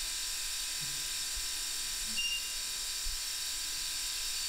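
Steady hiss with several faint high steady tones running through it, and a short, faint high tone about two seconds in.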